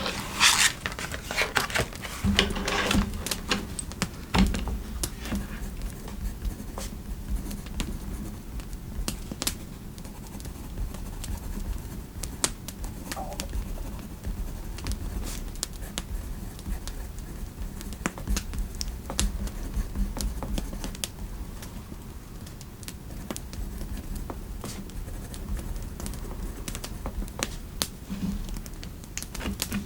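Scattered light clicks of slow keyboard typing over a low, steady fireplace ambience, with a few louder knocks and rustles in the first few seconds.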